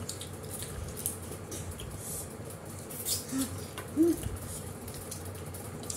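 People eating by hand, chewing and smacking: a run of small, close, wet clicks, with two short hummed sounds a little past the middle.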